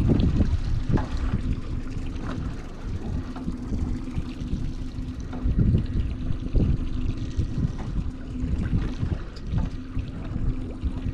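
Mercury outboard motor idling steadily on a small fishing boat, a constant hum, with wind buffeting the microphone and water sloshing against the hull.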